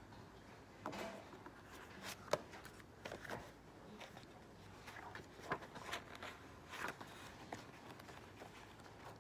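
Pages of a paper book being handled and turned by hand: a series of soft paper rustles and light knocks, the sharpest a short click about two seconds in.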